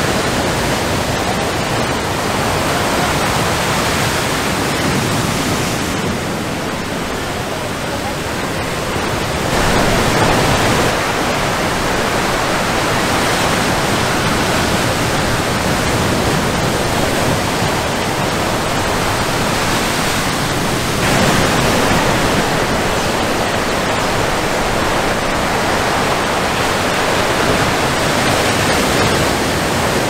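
Ocean surf breaking: a steady rushing wash of whitewater that swells louder about ten seconds in and again about twenty-one seconds in.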